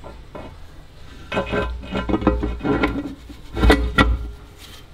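Gearbox casing being lowered and seated onto its other half: a run of metal clinks and knocks with some ringing, the loudest a thud near the end.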